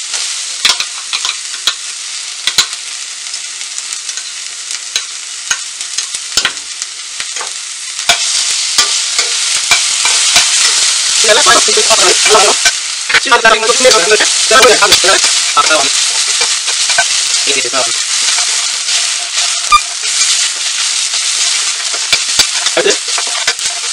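Chopped onions, garlic and ginger-garlic paste frying in oil in a steel pan: a steady sizzle that gets louder about eight seconds in, with a perforated steel spatula clicking and scraping against the pan as the mixture is stirred.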